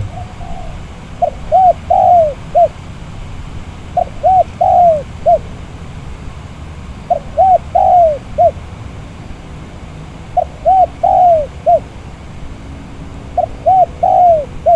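Spotted dove cooing in repeated phrases, about one every three seconds. Each phrase is a few short coos around a longer, arching one, over a steady low rumble of wind on the microphone.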